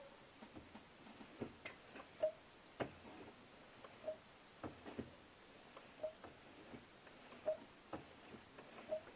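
Clutch mechanism of a VAZ 2110 being worked over and over after the clutch cable has been oiled: faint clicks and knocks with a short, faint squeak about every one and a half to two seconds. This is the clutch-cable squeak, here much reduced.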